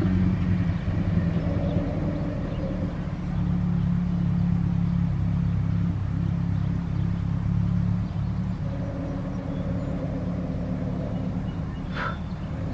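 Car engine idling steadily with a low hum. A short high sound comes near the end.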